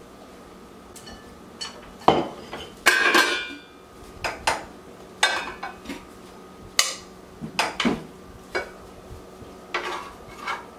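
Metal serving utensils clinking and scraping against cooking pots and a ceramic serving bowl as food is dished out: a run of irregular knocks and clinks starting about two seconds in, loudest around two to three and a half seconds, then lighter clinks every second or so.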